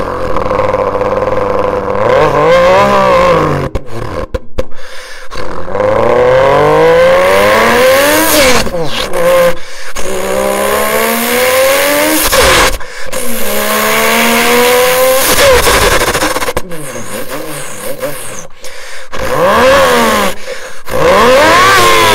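Turbocharged Toyota Supra straight-six engines with aftermarket exhausts, revving hard and accelerating over several short cuts. The pitch climbs and falls again and again.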